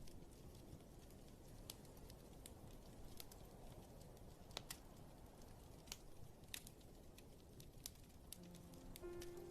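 Faint rain-and-fireplace ambience: a steady low rush with scattered sharp crackles and pops. Soft piano notes come in near the end.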